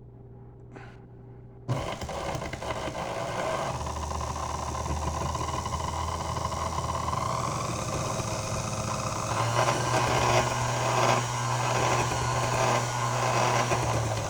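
Electric motor of a 1941 Sunbeam Mixmaster Model 7 stand mixer switched on about two seconds in and running steadily, its pitch shifting about 4 and 9 seconds in with a slow rising whine between. It runs a little rough, which the owner puts down to its being assembled from spare parts.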